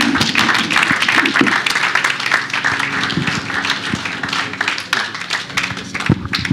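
Congregation applauding, a dense patter of many hands clapping that thins out near the end.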